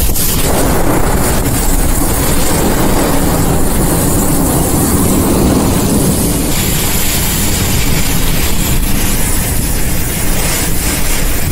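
Severe-storm wind and wind-driven heavy rain battering a car, heard from inside: a loud, steady rush of noise with a deep rumble underneath. About six and a half seconds in, the hiss turns brighter.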